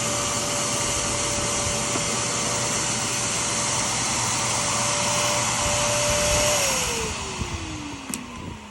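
Vacuum motor running steadily with a whine and a rush of air, then switched off about two-thirds of the way in, its whine falling in pitch as it winds down.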